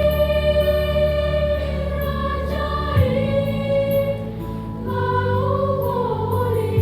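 School choir singing long held chords in several parts, over a steady low accompaniment; the chord changes about three seconds in and again near five seconds.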